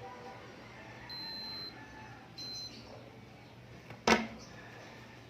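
Two steady high-pitched electronic beeps, the first about half a second long and the second shorter, then a single sharp click about four seconds in.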